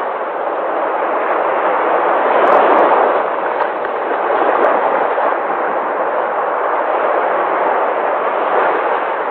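Sea waves breaking and washing in a continuous rush, swelling gently a couple of times.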